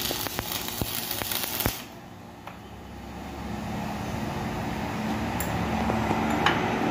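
Electric arc welding crackling and hissing for about the first two seconds as a weld bead is laid on a worn wheel hub to build up the metal, then the arc stops. A steady low hum follows, with a sharp metallic clink near the end as the hub is turned in a steel bench vise.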